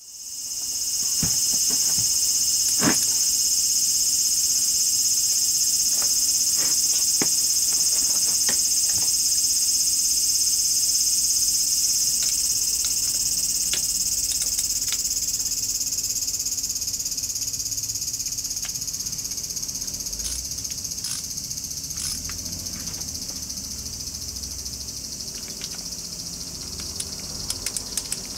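Steady, high insect buzzing that fades in right at the start and slowly weakens over the second half, with scattered light clicks.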